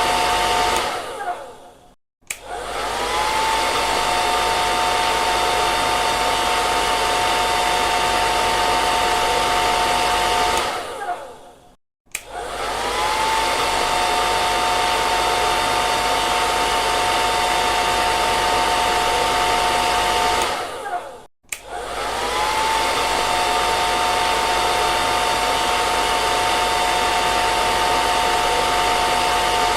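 Hair dryer blowing, a steady rush of air with a steady whine from its motor. Three times it winds down and cuts off, about ten seconds apart, and starts again at once with a short rising whine.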